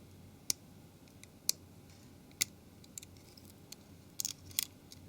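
Small sharp plastic clicks and taps, scattered irregularly and closer together near the end, as the keypad's two small retaining clips on a Nokia 701 are prised up with a tool.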